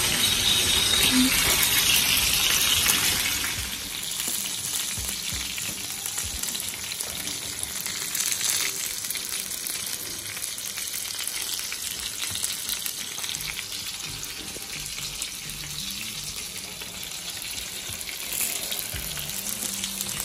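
Chicken pieces shallow-frying in hot oil in a pan, a steady crackling sizzle that is a little louder for the first few seconds.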